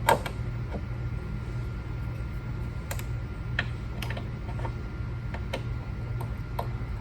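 Scattered light clicks and taps, irregular, of a hand screwdriver and small plastic sweeper parts being handled as the motor-mount screws are worked, over a steady low hum.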